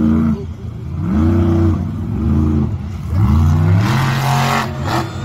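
Monster truck engine revving hard again and again, each rev rising and falling in pitch. About four seconds in, a loud burst of rushing noise joins it as the truck drives up onto the crushed cars.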